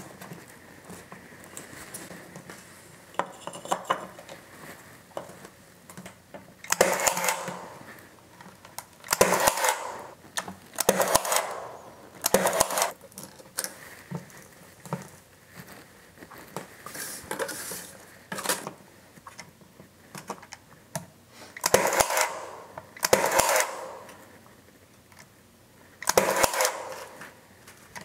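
Cordless pin nailer driving pin nails into thin glued wood strips: about seven short, sharp shots in two groups, with quieter clicks of the strips being handled between them.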